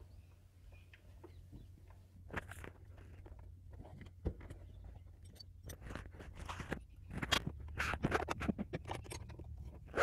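Irregular metal clicks and scrapes of a Torx key and fittings being worked on the EGR pipe's ring and bolt: sparse at first, busier over the second half, over a low steady hum.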